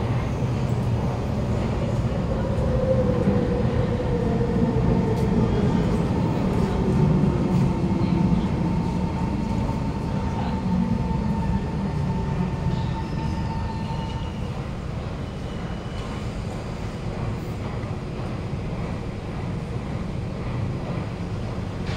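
SMRT Kawasaki Heavy Industries C151 metro train pulling into an underground platform behind screen doors. It rumbles heavily while a whine falls steadily in pitch as it brakes. About fourteen seconds in, a higher steady tone stops and the sound eases as the train comes to a stand.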